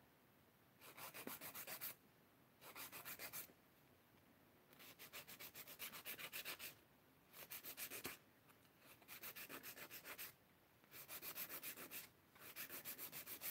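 Hand nail file rasping across acrylic stiletto nails in quick back-and-forth strokes, faint, coming in short runs of about a second with brief pauses between them.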